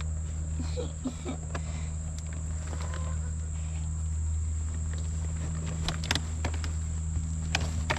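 Scattered knocks and rustles of a plastic potato-growing bucket and plastic sheeting being handled, clustered near the end. Under them run a steady low hum and a continuous high insect drone.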